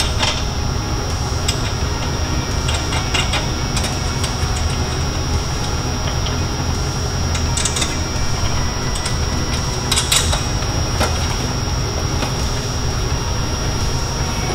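Scattered light metallic clicks of washers and nuts being fitted by hand onto the strut-top studs, over a steady low hum and a thin high whine.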